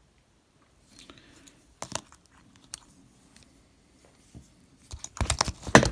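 Lock picking in an Assa Ruco 2 padlock: light scratches and small metallic clicks of a moustache pick working the pins, turning into a quick, louder run of clicks and rattles near the end.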